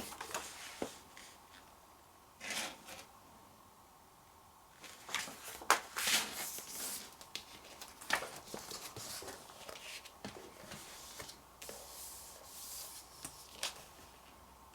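Magazine paper rustling and sliding as a fold-out page is handled and turned, in scattered soft brushes and crinkles with a quiet pause about three seconds in.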